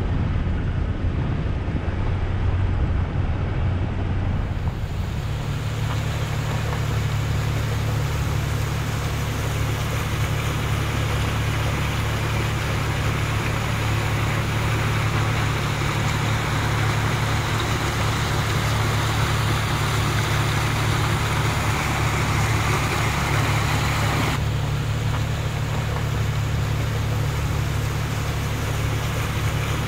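Jeep Cherokee XJ driving on a back road: a steady low engine drone with tyre and road noise over it. The road noise grows louder about five seconds in and drops back suddenly about five seconds before the end.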